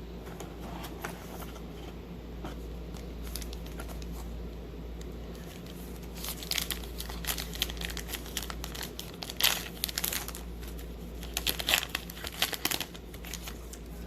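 Crinkling and rustling of a trading-card pack's wrapper being handled, faint at first, then in loud bursts through the second half, over a steady low hum.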